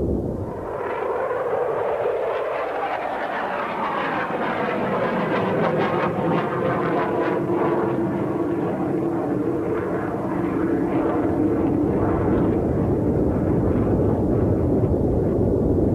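Jet engines of a low-flying B-1B bomber: a steady jet noise that builds about a second in and carries on, with sweeping changes in tone as the aircraft passes.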